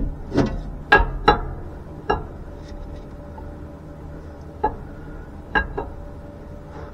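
New roller camshaft being slid by hand into the cam bearings of a 1979 Corvette's engine block, its steel lobes and journals giving a handful of irregular, sharp metallic clinks and knocks as they catch on the bearings.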